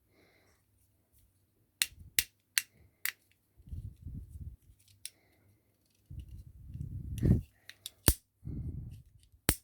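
Fidget pad being played with: sharp single clicks of its buttons and switches, spaced irregularly, between stretches of low rubbing and rolling noise from working its other parts.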